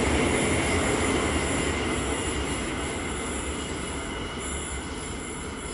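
Electric suburban train rumbling past along the platform and moving away, its rolling noise fading steadily, with a faint high squeal from the wheels.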